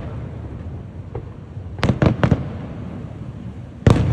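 Aerial fireworks bursting over a steady low rumble: a faint pop about a second in, three quick bangs around the two-second mark, and a sharp, louder bang near the end.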